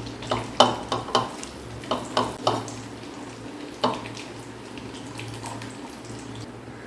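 Kitchenware clinking and knocking while onion, ginger, garlic and green chilli are mixed into masala: a quick run of sharp clinks in the first two and a half seconds and one more near four seconds, over a low steady hum.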